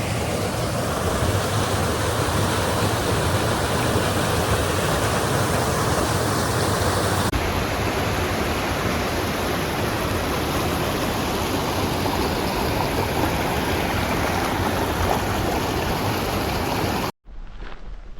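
Steady rush of fast-flowing water from a mountain stream. Near the end it cuts out and footsteps begin.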